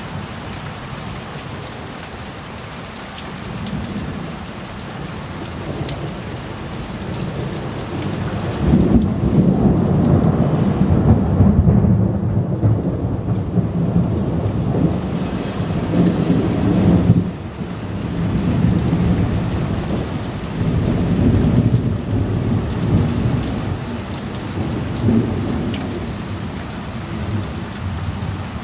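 Thunderstorm: steady rain falling, with long rolls of thunder. The rumble builds about a third of the way in, cuts back sharply a little past halfway, then rolls on again more softly.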